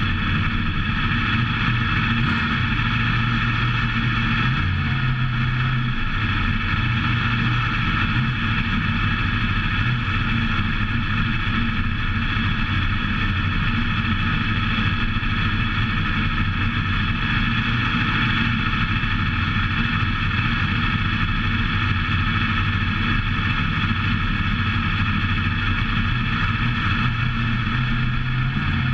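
WISSOTA modified dirt-track race car's V8 engine running steadily at low revs while the car rolls slowly, with a brief slight rise in the engine note about five seconds in and again near the end.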